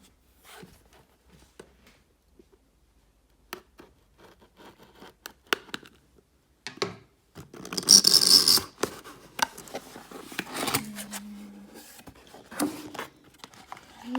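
Packaging of an iPhone 12 Pro Max box being handled and opened: scattered small clicks and scratches, with a loud scratchy rip lasting about a second about eight seconds in.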